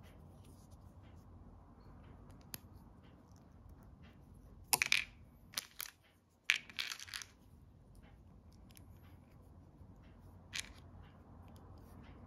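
Small plastic parts of a clone Lego minifigure clicking and tapping as hands fit the head, torso and legs together, with a cluster of louder clacks about five to seven seconds in and one more near the end.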